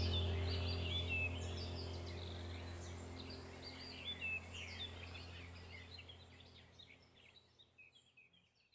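Many small birds chirping and twittering over a steady low hum, the whole fading out toward the end.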